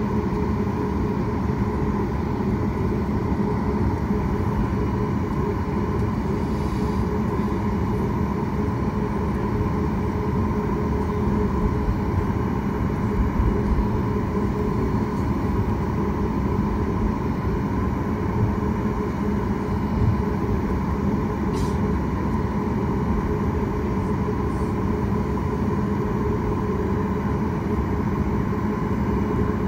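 Steady cabin noise inside a Boeing 737 MAX on the ground, its CFM LEAP-1B engines running at low power: an even hum with a low and a higher held tone that neither rises nor falls.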